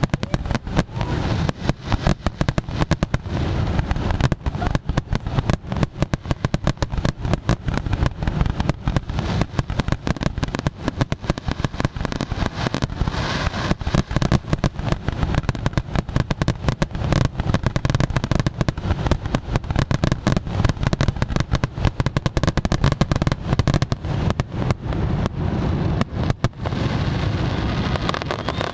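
Aerial fireworks display in a dense barrage: shells bursting in rapid, overlapping bangs and crackles, many each second without a break.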